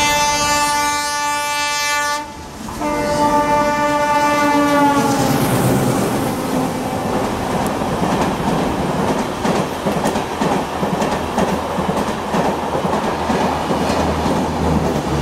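WDM3D diesel locomotive's horn sounding two blasts as it approaches, the second dropping in pitch as the locomotive passes. Then the LHB passenger coaches rush past at speed, with the wheels clicking over rail joints.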